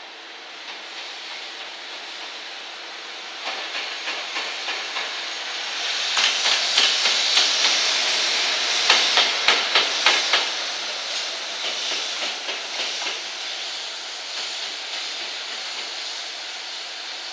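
JR Freight EF210-300 series electric locomotive running light past at low speed: its wheels clack in a regular series over the rail joints with a hiss from the locomotive, growing louder and loudest between about six and ten seconds in, then fading as it moves away.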